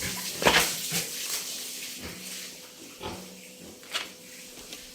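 Pigs grunting in short calls, the loudest about half a second in.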